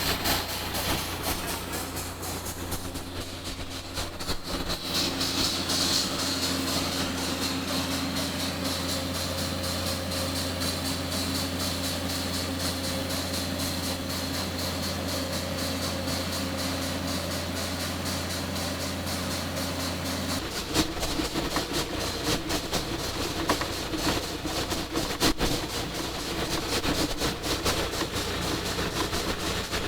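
Drill rig running steadily while drilling. About two-thirds of the way through, the sound shifts and irregular pops and knocks set in: the bit taking a bite each time it comes around as it gets into bigger rock or gravel.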